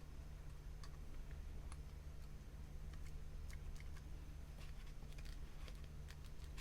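Faint, scattered light clicks and taps of small craft pieces and the charm stapler being handled and positioned, more frequent after about three seconds, over a low steady hum.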